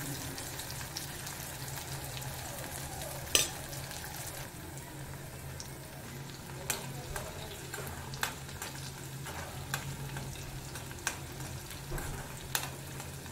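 Sliced okra frying in hot oil in a metal kadai, with a steady sizzle. A metal spoon stirring the okra knocks against the pan about seven times, loudest about three seconds in.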